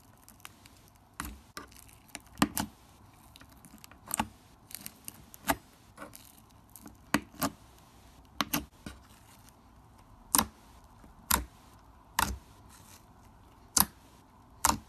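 Thick bubbly slime worked with a fork in a plastic jar, then squeezed by fingers. It gives sharp, irregular clicks and pops, roughly one a second, as air pockets in the slime burst.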